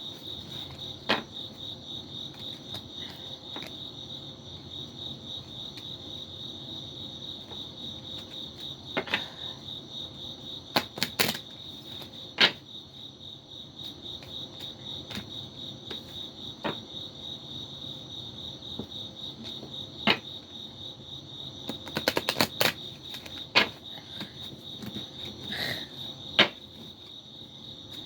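Crickets chirping steadily, with a dozen or so sharp clicks and knocks scattered through, several in quick succession about three quarters of the way in.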